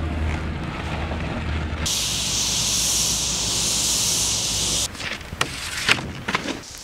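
A low steady rumble, cut to a loud steady hiss lasting about three seconds that stops abruptly, followed by several sharp clicks and knocks.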